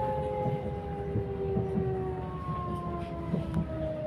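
Passenger train running, heard from on board: several whining tones slowly falling in pitch over a low rumble, with occasional light clacks.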